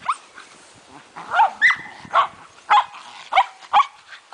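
Shetland Sheepdogs barking: a string of about seven short, sharp, high-pitched barks, roughly every half second.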